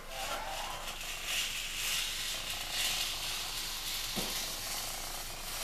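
Scissors cutting along a sheet of marble-pattern vinyl contact paper, giving a steady papery hiss that swells and eases as the blades slide through.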